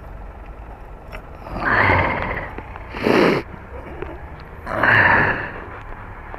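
A person's breathing close to the microphone: a long breath out, a short sharp sniff, then another long breath out, over the low steady hum of a car.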